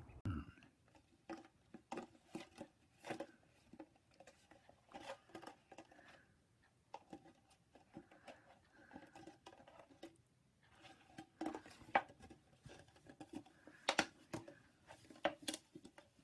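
Puppy chewing and nosing a red plastic cup about on carpet: a faint, irregular run of plastic clicks, taps and crinkles, with the sharpest taps a little before and after the middle and near the end.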